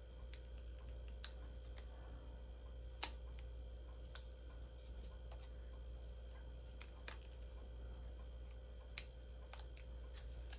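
Scattered small clicks and paper crackles as the adhesive backing is peeled off a die-cut cardstock strip and the strip is handled, over a low steady hum. The sharpest click comes about 3 s in.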